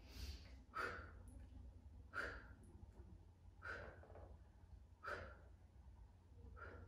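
A woman breathing faintly while holding a side-lying Pilates leg lift, in short breaths about every second and a half, over a low steady room hum.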